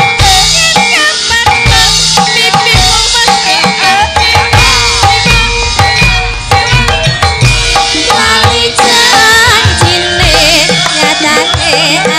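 Javanese gamelan music playing, with kendang drum strokes under ringing metallophones and a wavering melodic line.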